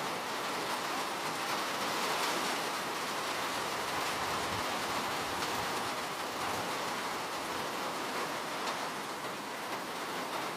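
Steady rainfall, a dense, even sound of many raindrops with no pauses.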